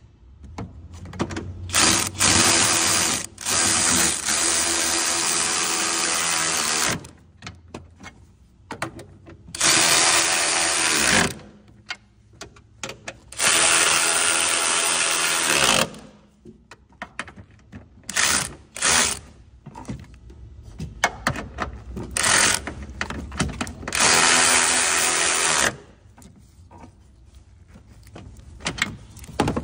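Handheld power tool run in repeated bursts of one to four seconds, its motor pitch dropping as each burst ends, with clicks and clatter of tools and parts between bursts.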